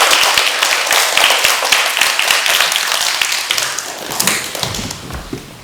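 Audience applauding, a dense patter of many hands clapping that thins out and fades over the last second or two.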